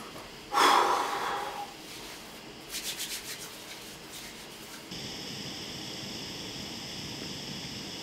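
A loud short rush of noise about half a second in, then hands rubbed quickly together for warmth about three seconds in. From about five seconds a portable gas camping stove burner hisses steadily under a kettle.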